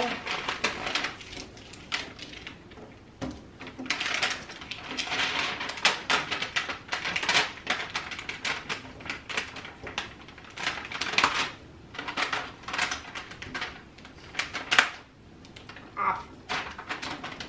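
Crinkly rustling and crackling of vinyl window clings and their backing paper being handled and pressed onto a window pane, coming in irregular bursts.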